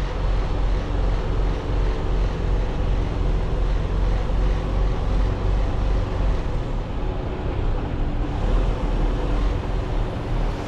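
Semi-truck's engine running steadily: an even, low rumble with a faint steady hum above it.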